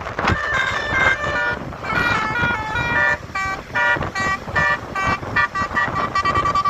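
A bus's multi-tone 'telolet' air horn playing a quick tune of short notes that jump between pitches, then settling on one long held note near the end.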